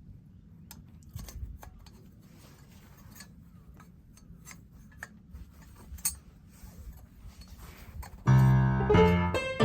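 Faint scattered clicks and taps over a low steady rumble. Piano music starts loudly about eight seconds in.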